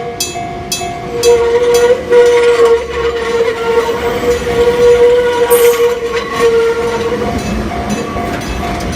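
Enoden level-crossing warning alarm striking about twice a second as a train passes, with a loud steady tone that runs until about seven seconds in and then stops.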